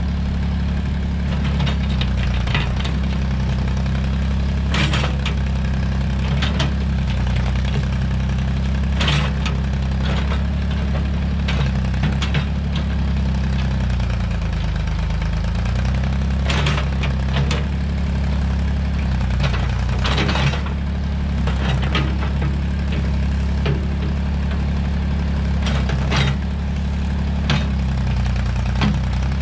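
Massey Ferguson tractor-backhoe engine running steadily, its pitch sagging briefly about halfway through as it pulls under load, with scattered sharp cracks and knocks over it.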